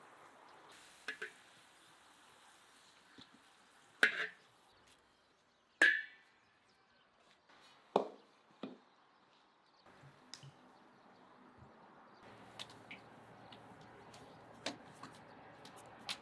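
A few separate sharp metallic clinks and knocks from a metal skimmer and a steel plate as fried potato wedges are lifted onto the plate, one ringing briefly about six seconds in, and a heavier knock about eight seconds in as the plate is set down on a wooden table.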